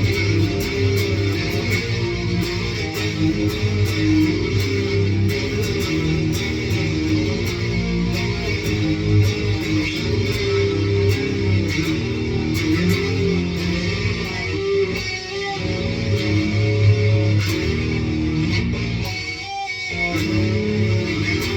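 Six-string electric guitar in low A-sharp standard tuning, played through an amp with an overdrive pedal stacked on a distortion pedal and chorus, giving a heavy, dirty tone. The playing runs on with one short break about nineteen seconds in.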